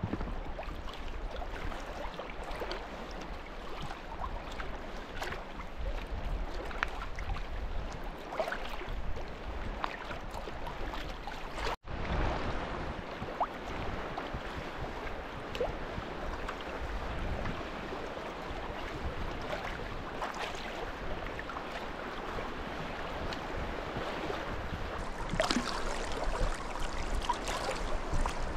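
Kayak being paddled across choppy lake water: steady lapping and splashing of small waves against the hull and paddle, with wind.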